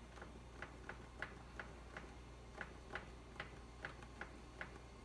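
Soft clicks of a finger tapping the timer key on a GE gas range's touch control panel, about two or three a second, as the timer is stepped up to ten minutes.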